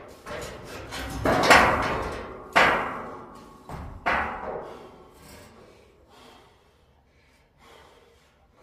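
Steel pallet racking being knocked and clanging: about five heavy metal knocks in the first four seconds, each ringing out for about a second, then only a faint knock near the end.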